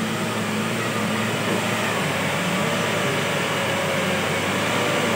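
Mahindra Bolero pickup's diesel engine running steadily with a low hum as the truck pulls slowly through deep mud.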